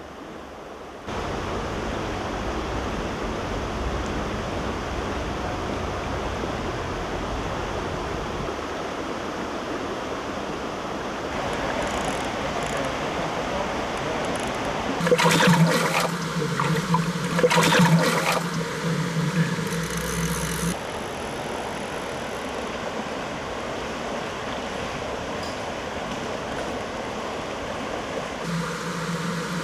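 Fast-flowing river water rushing over stones, a steady hiss. Twice around the middle the rush grows louder for a second or so.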